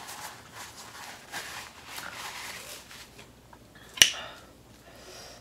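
Paper napkin rustling as it wipes the mouth, then a single sharp clink about four seconds in as a metal fork strikes the baking dish of noodles.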